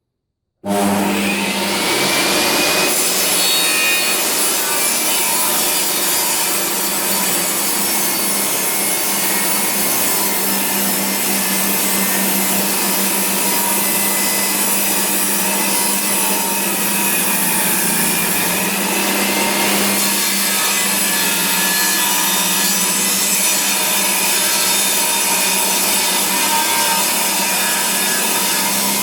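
Makita 2704N table saw ripping a board of recycled hardwood, the blade cutting steadily along the grain under load. It starts abruptly about half a second in and then runs on without a break.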